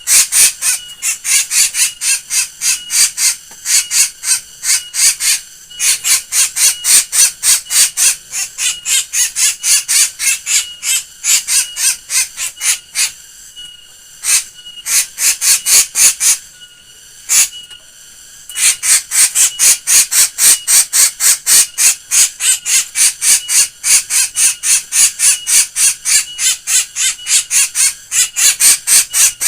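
A black bird calling in a fast, unbroken string of short, harsh notes, about four a second, thinning to a few scattered notes for several seconds midway before the rapid run resumes.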